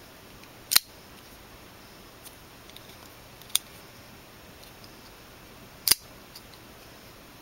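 Assisted-opening folding knife being worked by hand: three sharp metallic clicks, about a second, three and a half and six seconds in, as the blade snaps open and locks or is closed, with faint handling ticks between.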